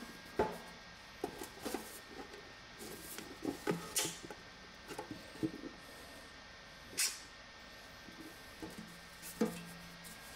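Scattered clicks and knocks of a stainless steel bar sink and its drain strainer being handled and pressed, with four sharper metallic taps spread through.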